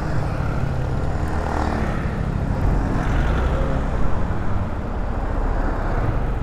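Yamaha NMAX 155 scooter's single-cylinder engine running steadily, under a constant rush of wind on the microphone.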